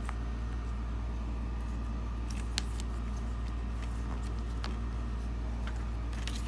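Steady low hum under a few short clicks and light rustles as the paper inserts inside a plastic DVD case are handled and flipped.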